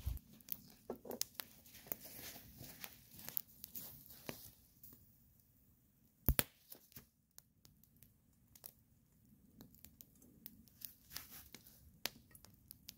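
Wood campfire crackling and popping in irregular sharp snaps, with one louder pop about six seconds in.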